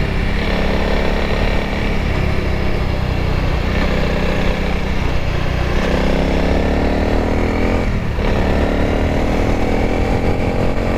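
Honda CRF300L's single-cylinder four-stroke engine running under way, the engine note climbing as the bike accelerates and dropping back three times, about two, six and eight seconds in, as it shifts up through the gears.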